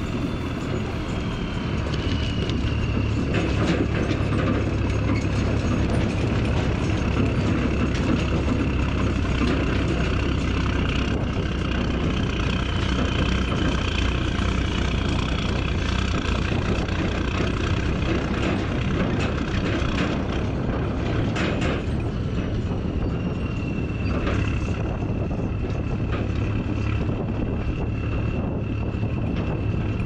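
Truck hauling a backhoe on a trailer: steady engine rumble and rattling road noise, with a faint high whine and a few sharp clanks around twenty seconds in.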